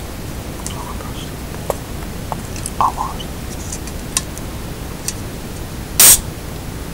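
Pull tab of a carbonated drink can being cracked open: a short, sharp hiss of escaping gas about six seconds in, the loudest sound, after a few light clicks of a fingertip working the tab. Steady background hiss underneath.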